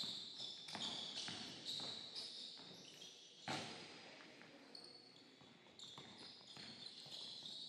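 Basketball dribbled on a hardwood gym floor, with players' footfalls and short high sneaker squeaks echoing in the large hall. A louder thump comes about three and a half seconds in.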